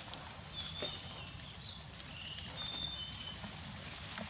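Birds calling: a string of short, high whistled notes and slurs, busiest around the middle, over steady low outdoor background noise.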